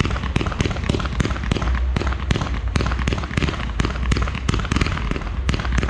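Fireworks display: a rapid string of sharp bangs and cracks, about three or four a second, over a steady low rumble.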